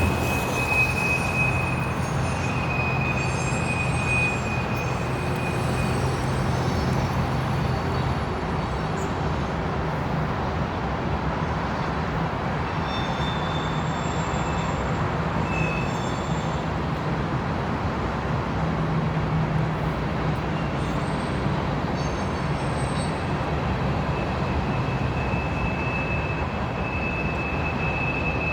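A long freight train of grain cars rolls past with a steady rumble and rattle. High wheel squeals come and go, and a low diesel engine drone sits underneath.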